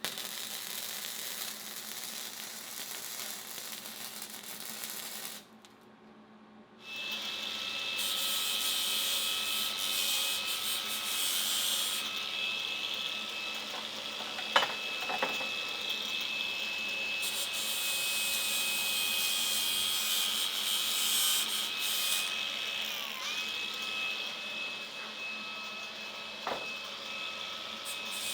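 Electric drill running and boring through steel tube, a steady high motor whine over the cutting noise. It stops briefly about five seconds in, starts again, and the pitch sags for a moment under load near the end, with a couple of sharp clicks along the way.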